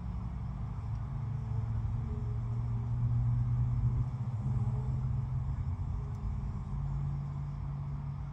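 Low engine rumble, as of a motor vehicle, swelling to its loudest about three or four seconds in and then slowly fading.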